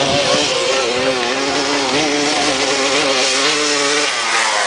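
A 125 cc four-stroke single-cylinder dirt bike engine running at high revs, its pitch wavering with the throttle, then dropping off near the end.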